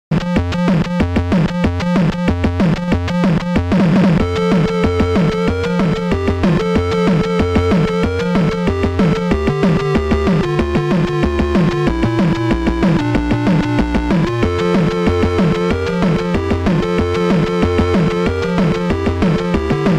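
Electronic synthesizer music with a steady pulsing beat. A lead melody of held notes comes in about four seconds in.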